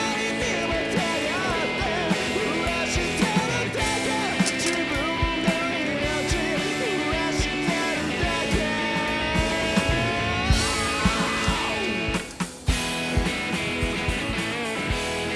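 Background rock music with electric guitar, drums and a sung melody line; the music dips briefly about twelve seconds in.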